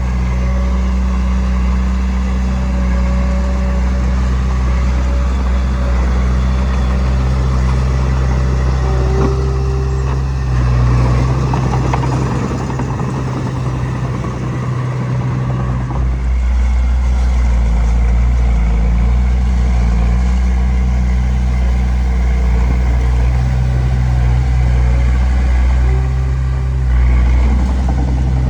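Heavy diesel engine of earthmoving machinery running steadily under load. From about ten to sixteen seconds in, its low rumble drops back while a noisier rattling sound comes up, then the steady hum returns.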